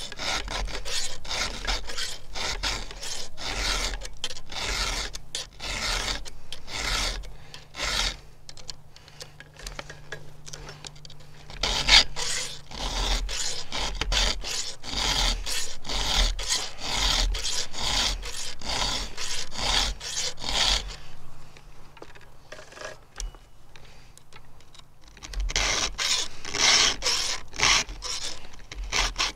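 Round file rasping in repeated strokes through the cutters of a dull 3/8-pitch chainsaw chain as it is hand-sharpened. The strokes ease off briefly about three-quarters through, and there is one sharper knock near the middle.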